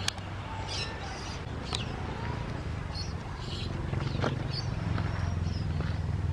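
Steady low rumble of wind buffeting the microphone, with a few brief high chirps and light clicks over it.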